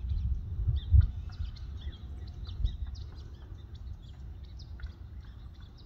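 Small birds chirping over and over in short high notes, over a low steady rumble, with a dull thump about a second in.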